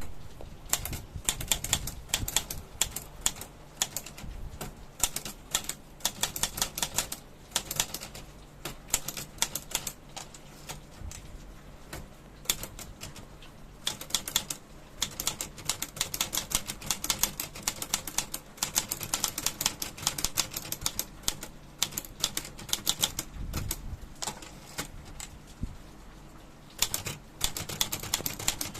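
Olivetti Dora manual portable typewriter being typed on: rapid runs of sharp key strikes in bursts with short pauses between them.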